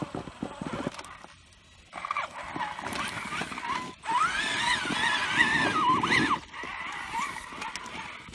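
Traxxas Summit RC truck's electric motor whining as it crawls over rocks, rising and falling in pitch with the throttle. The whine is loudest from about four to six seconds in, after a few knocks of tyres and chassis on stones near the start.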